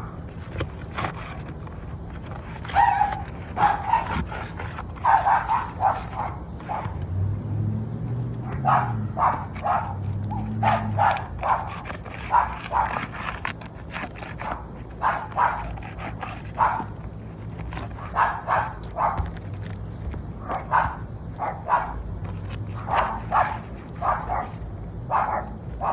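A dog barking over and over in short barks, about one or two a second.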